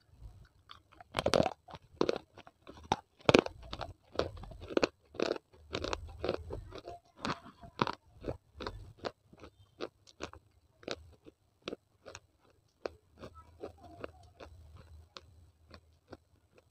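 Small baked clay pieces bitten and crunched between the teeth, close to a clip-on microphone: two hard crunches near the start, then a long run of sharp chewing crunches, about one or two a second, getting softer towards the end.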